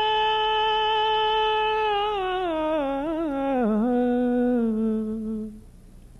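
A man's unaccompanied naat-singing voice holds one long, steady high note. About two seconds in it slides down through wavering ornaments to a lower note, which he holds until it breaks off near the end.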